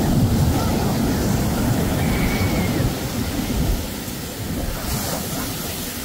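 Ocean surf washing up the beach, a steady rushing wash that is louder in the first half and eases off.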